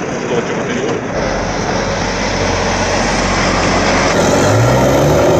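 Heavy semi-trailer truck driving past close by, its engine and tyre noise building, with the engine note climbing near the end.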